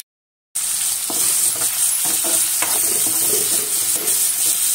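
Drumstick pieces and onions sizzling in hot oil in a kadai while a steel spatula stirs them, scraping against the pan every so often. The sound is cut out completely for about the first half second, then the sizzle runs steadily.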